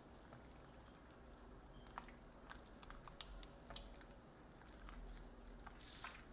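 Homemade starch slime squeezed and folded by hand, giving faint wet squishes and sharp sticky clicks at irregular intervals, more of them from about two seconds in.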